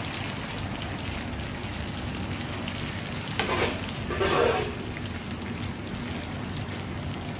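Spaghetti being stirred and tossed in hot garlic oil in a pot: a steady sizzle with light clicks of the metal utensil against the pot. A louder burst of stirring noise comes about three and a half seconds in.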